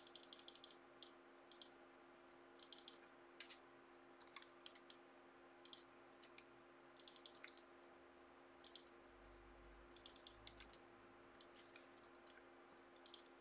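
Faint computer mouse and keyboard clicks, some single and many in quick clusters of several, over a low steady electrical hum.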